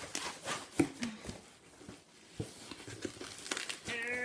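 Packing paper and wrapping crinkling and rustling as hands dig boxed figures out of a shipping box: a busy burst of crackling in the first second and a half, then scattered light taps and rustles.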